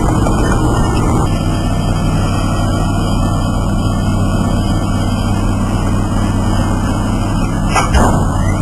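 Excavator engine running steadily under load, with a short knock about eight seconds in.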